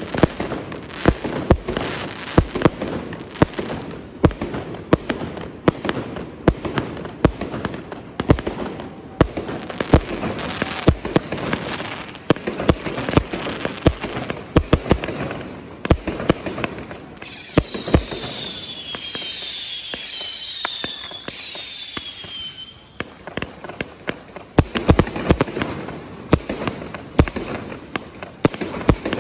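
Aerial fireworks going off in quick succession: a rapid string of sharp bangs over continuous crackling. About two thirds of the way through, several falling whistles sound for a few seconds while the bangs thin out, then the bangs return.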